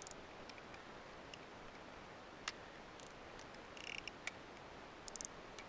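Faint scattered clicks and light rattles of small fishing tackle worked in the hands, over a low steady hiss. There is a sharp click about two and a half seconds in, and short clusters of clicks around four and five seconds.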